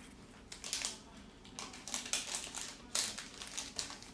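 A handful of light clicks and scrapes as an LG K30's motherboard is set into the phone's metal middle frame and pressed into place by fingers.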